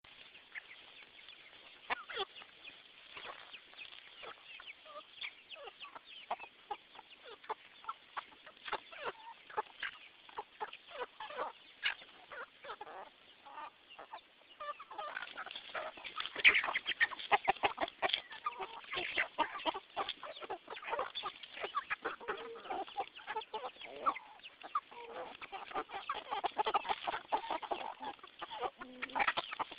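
Flock of chickens clucking, getting busier and louder about halfway through.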